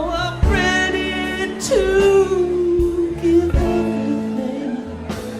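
Live band playing a slow rock song: a lead line of long held notes, one sliding down and held, over bass and drums.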